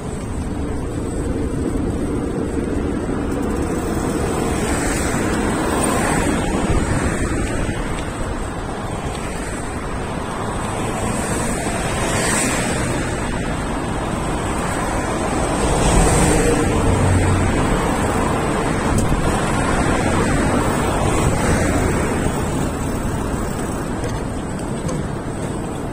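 Road traffic on a multi-lane road: a steady rush of car tyres and engines, swelling each time vehicles pass close by, several times over.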